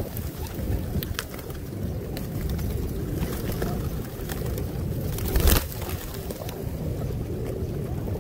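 A close flock of feral rock pigeons feeding: a steady mass of low cooing with scattered sharp clicks. About five and a half seconds in comes a brief, louder rush of noise.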